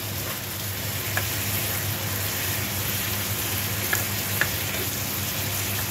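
Squid, bell peppers and onion sizzling in a frying pan as the sauce cooks down, nearly done, stirred with a plastic spatula that taps the pan a few times. A steady low hum runs underneath.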